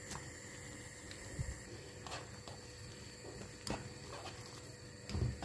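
Instant noodles cooking in a pan of bubbling water, a faint steady simmer, with a few scattered clicks and taps and a dull thump near the end.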